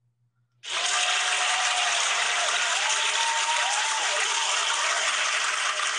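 Recorded crowd applause, steady clapping that cuts in abruptly about half a second in.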